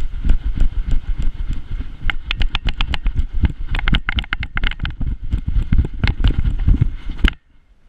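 A GoPro strapped to a running beagle jolts with every stride: a rapid, uneven run of heavy low thuds and rumble, with sharp clicks and rattles from the camera and its mount. It cuts off suddenly near the end.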